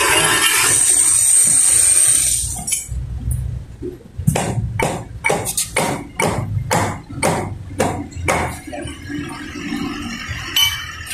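A loud steady hiss, the kind made while cleaning motorcycle brake parts, cuts off about two and a half seconds in; a run of about a dozen sharp knocks follows over the next four seconds.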